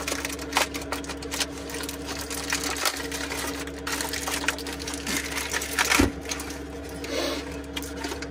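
Aluminium foil crinkling as it is peeled open from a roasted yam, over the steady hum of the van's heater. About six seconds in, a thump as the yam drops onto a metal plate.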